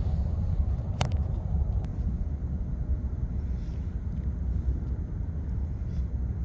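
Steady low rumble of outdoor background noise, with one sharp click about a second in.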